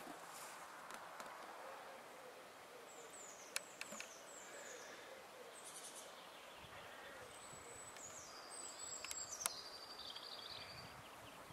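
Small birds calling in short, repeated, falling high chirps over a faint, steady outdoor hiss. Two sharp clicks stand out, a few seconds in and again about six seconds later.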